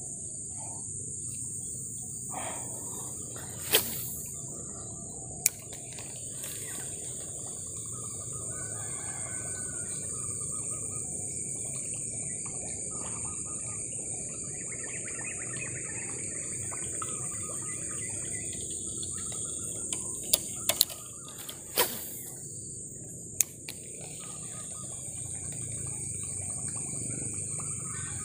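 Steady high-pitched drone of insects in riverside vegetation, with birds chirping faintly and a few sharp clicks scattered through, the loudest about four seconds in and again a little past twenty seconds.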